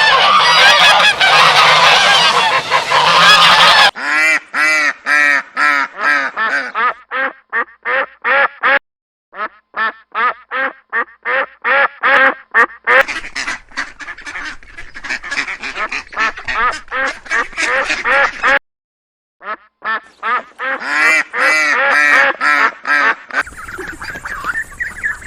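Domestic waterfowl calling. For the first few seconds it is a dense chorus of many birds at once. Then come long runs of short honking calls, a few each second, which break off abruptly twice.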